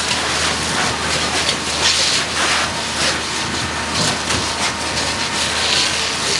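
Fire hoses spraying water onto a burning car: a loud, steady hiss of water jets and steam, swelling twice, over a steady low hum.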